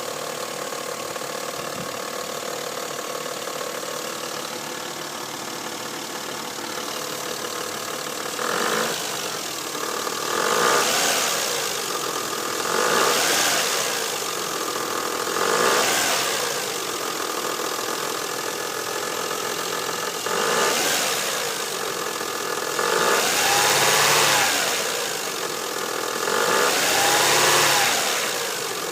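2000 Mazda 626's 2.5-litre K-series V6 idling with an unidentified noise that began a few days earlier, then blipped by hand about seven times, each rev rising and falling back to idle. The owner does not know the cause and suspects a timing-belt idler pulley or a piston or bearing problem.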